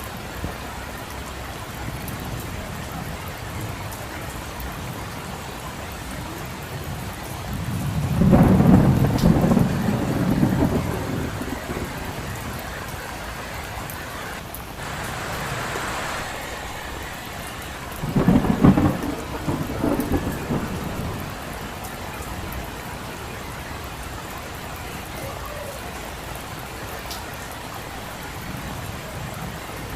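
Steady heavy rain falling, with two rolls of thunder, one about a third of the way in and a second, shorter one a little past the middle.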